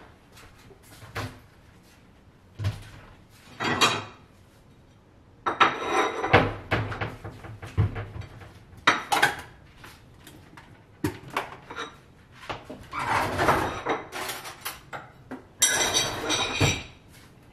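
Pots, pans and utensils clattering and scraping at a stove, in irregular knocks with a few longer stretches of busier clatter.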